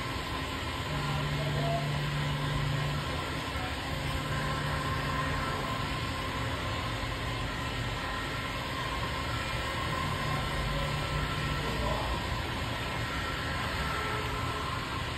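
Electric heat gun running steadily, its fan blowing hot air to shrink window tint film onto a car windshield.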